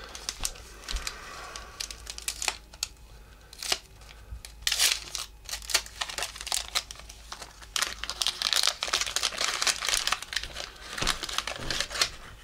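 Wax paper wrapper of a 1984 Topps baseball card pack crinkling and tearing as it is opened by hand, in irregular bursts, thickest about five seconds in and again from about eight to ten seconds.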